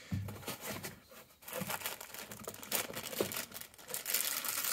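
Clear plastic bag crinkling and rustling as it is handled and opened by hand. The crinkling turns dense and continuous from about a second and a half in, after some quieter handling.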